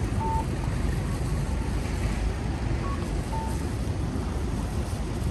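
City street rumble, a steady low roar of traffic and wind on the microphone, with a short two-note electronic beep, high then low, that comes at the start and again about three seconds later.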